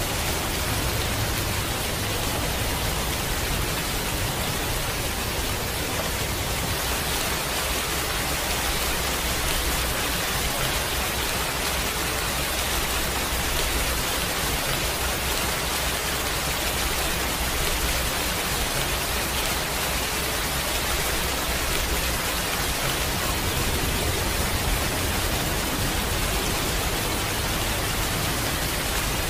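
Heavy rain falling steadily: a dense, even hiss with a low rumble underneath.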